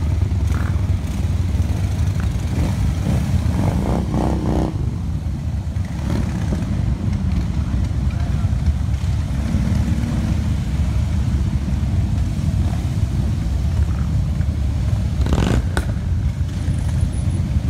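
A column of Harley-Davidson motorcycles rolling past at low speed, their V-twin engines running together in a steady, deep rumble.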